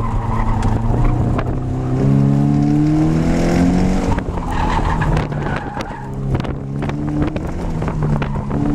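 2015 Subaru BRZ's 2.0-litre flat-four engine, heard from inside the cabin, being driven hard through an autocross course. It revs up for a couple of seconds, drops back about four seconds in, and climbs again after six seconds as the driver accelerates and lifts between cones.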